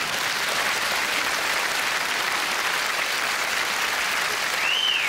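Theatre audience applauding steadily at the end of a comedy sketch, with a brief high call that rises and falls near the end.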